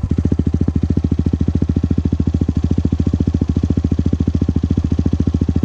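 CFMOTO 150NK's single-cylinder engine idling steadily through a universal carbon slip-on exhaust with its baffle removed, loud with an even, rapid exhaust pulse.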